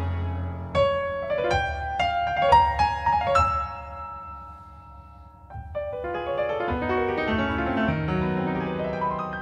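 Grand piano playing alone in a tango: a phrase of single struck notes that ring out and die away, then a denser run of notes from about six seconds in.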